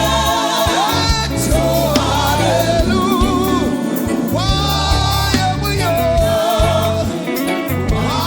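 Live gospel praise music: singing voices with a band playing a steady bass line and drums.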